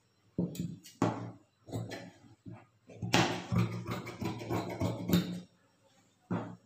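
Large steel tailor's scissors cutting through cloth laid on the floor: a few short snips and rustles of handled fabric, then a longer run of cutting about three seconds in.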